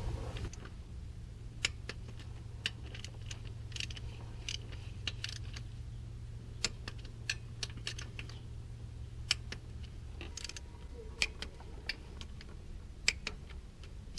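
Irregular light metallic clicks and clinks of hand tools, sockets and bolts while the new water pump's bolts are run in. A low steady hum runs underneath and stops about ten seconds in.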